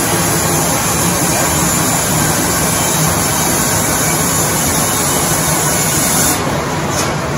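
Antique sawmill running: the log carriage moving a large log along its rails toward the circular headsaw, making a loud, steady noise with a low hum beneath. The high hiss drops off abruptly about six seconds in.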